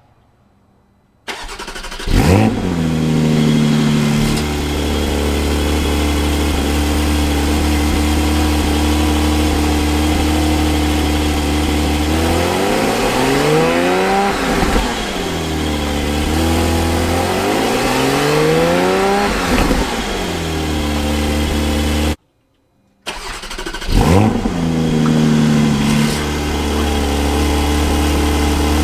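Porsche 718 Spyder's 4.0-litre flat-six on its stock exhaust. It starts with a flare of revs, settles to a steady idle, and is revved twice in quick blips. After a short silence it starts again with another flare and settles back to idle.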